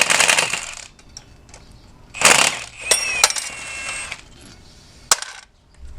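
Loose metal parts and tools clanking and scraping as they are handled and set down, twice; a metal piece then rings for about a second, and there is a sharp click near the end.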